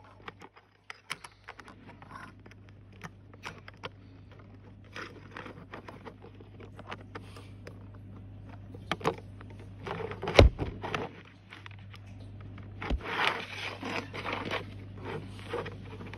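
Plastic Lego train-track pieces being handled and clicked together: irregular clicks and scrapes, with one sharp knock about ten seconds in and a busier run of clicking and scraping a few seconds later. A low steady hum runs underneath.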